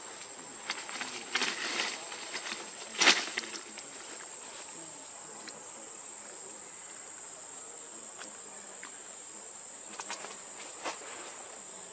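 Steady, high-pitched insect drone, with rustling and clicks in the first two seconds, a sharp knock about three seconds in, and two more clicks near the end.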